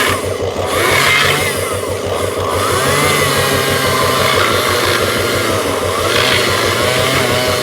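An engine running steadily, with an even low chugging and a pitch that wavers up and down slightly.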